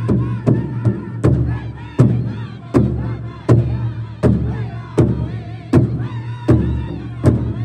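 Powwow drum group singing around a large bass drum, the drummers striking it together in a steady beat of about one and a half strikes per second, under group singing in high voices.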